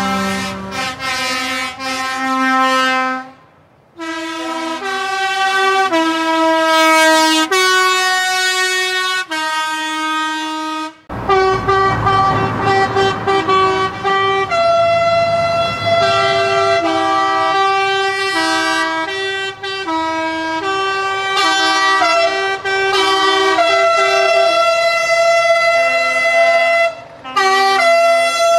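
Musical air horns on a showtruck playing a tune, several horn notes sounding together and stepping from note to note, with short breaks about four seconds in and near the end. A rumble of engine noise comes in underneath about eleven seconds in.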